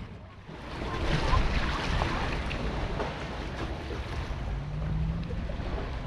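Waves washing and surging, with wind buffeting the microphone.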